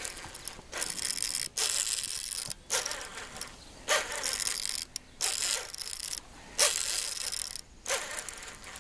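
Baitcasting reel's drag and gears buzzing in about eight short runs, each under a second with brief gaps, as a hooked fish pulls line against the reel.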